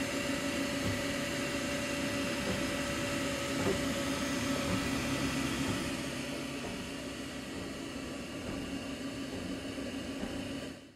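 Dremel 3D printer running a print: a steady mechanical whir and hum from its motors and fans with several steady tones, a little quieter in the second half.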